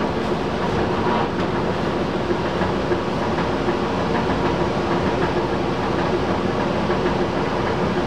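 Belt-driven squirrel-cage blower running steadily on a new belt, with a little bit of rattle from the blower itself over a steady hum.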